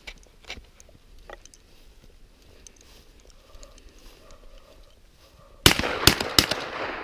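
Faint scattered clicks, then about five and a half seconds in a sudden run of three loud, sharp bangs within a second, with a rushing noise between them that fades after the last.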